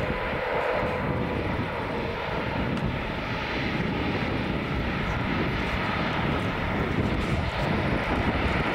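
Twin jet engines of an Airbus A330 running steadily as the airliner rolls along the ground, a continuous rumble and hiss that grows a little louder near the end.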